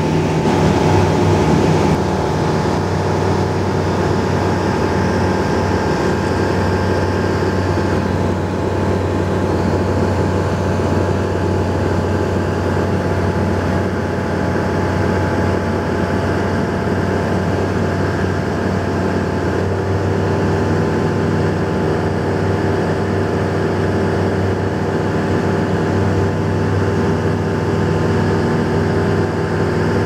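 Aircraft engine drone heard from inside the cabin, steady and loud, with several fixed tones that shift slightly about two-thirds of the way through.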